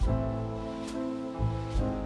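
Background music with soft beats and sustained notes changing about every half second.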